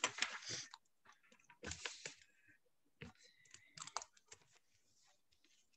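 Faint computer keyboard typing and clicking, in three short clusters, picked up by a video-call microphone.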